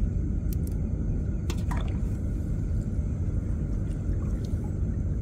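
Water dripping and splashing off a wet gill net as it is worked over a small boat, with a few short clicks, over a steady low rumble.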